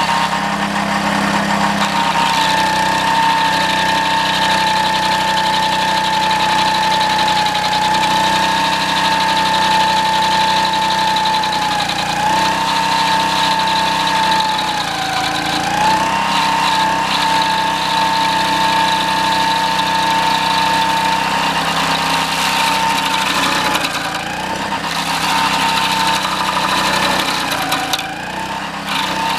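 Homemade stump grinder's 6.5 hp Honda engine running steadily at speed, driving its toothed cutting wheel on a green pine stump. The pitch sags briefly a few times, around the middle and near the end, as the engine is loaded.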